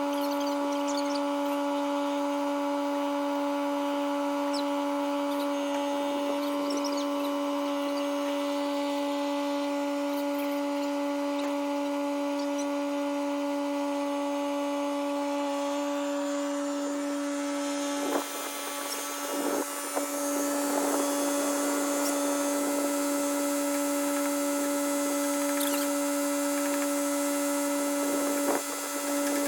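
A motor running at a steady speed with a constant whine, most likely the small Kubota compact tractor working the logs; it dips briefly about two-thirds of the way through and again near the end.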